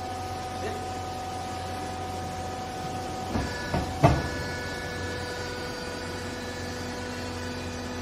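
Hydraulic power unit of a vertical clothes baler running with a steady hum. Three and a half to four seconds in come a few sharp clicks, the last and loudest as the control-panel button is pressed, and the hum's pitch changes as the ram moves down onto the clothes.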